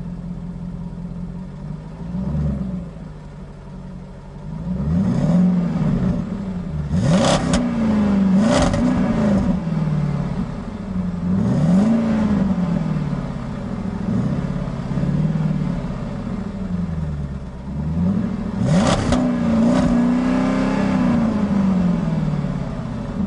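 Car engines revving over and over, each rev climbing and falling back in pitch every couple of seconds, with a few sharper, louder revs about a third of the way in and again near the end.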